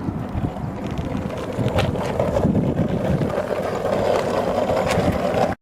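Wind rumbling on the microphone, growing louder, with a few faint clicks; the sound cuts off abruptly near the end.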